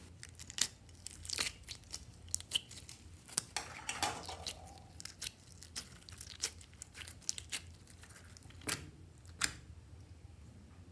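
Clear slime being squeezed with the fingers and pulled out of a plastic shell-shaped container: irregular sticky clicks and pops, thickest around four seconds in.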